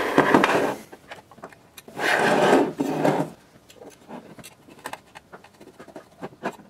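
Hand-handling noise: rubbing and scraping as a hand moves a wire across the desktop and the board, in two loud stretches, the second about two seconds in. After that come faint scattered small clicks as the wire end is worked into a screw terminal.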